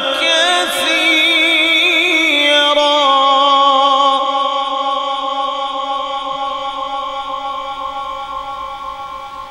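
A man's voice in melodic Quran recitation (tajweed) through a PA microphone, with wavering, ornamented notes. It settles on one long held note that fades away slowly over the last five seconds or so, drawn out by the sound system's long echo.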